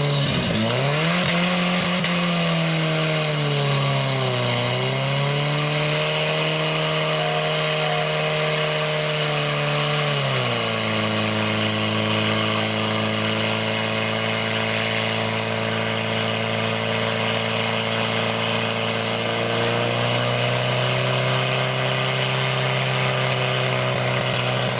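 Portable fire pump's petrol engine running hard under load as it drives water through the attack hoses. Its pitch dips twice early on, falls sharply about ten seconds in, then holds steady.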